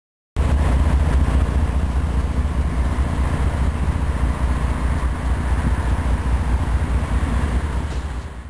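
A heavy engine running steadily with a deep, low rumble, starting abruptly just after the start and cut off abruptly at the end.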